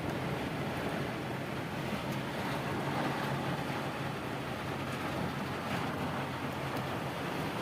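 Heavy rain falling in strong wind, a steady rushing noise with a low hum underneath.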